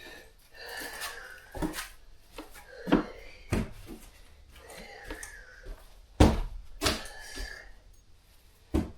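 Irregular knocks and thuds of wood, about six spread over several seconds, from floor panels being handled and set down.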